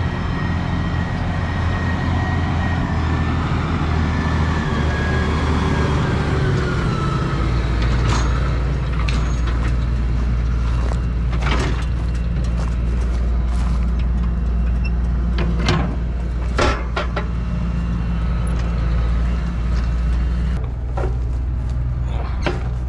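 Farm tractor engine running steadily, its note easing lower over the first several seconds and then holding, with a few sharp clanks and knocks in the middle.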